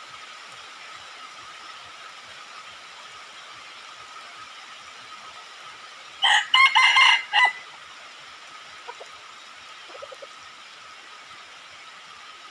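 Red junglefowl rooster crowing once, a short crow broken into a few segments and lasting a little over a second, about halfway through. A steady faint high hum runs underneath.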